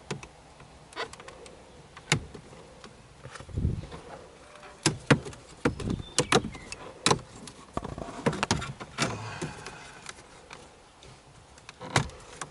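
Plastic dashboard trim and its retaining clips on a 2016 Ford Fusion being pried loose. There is a string of sharp clicks, snaps and plastic knocks, one duller thump about four seconds in, and a stretch of scraping and rattling about eight to nine seconds in.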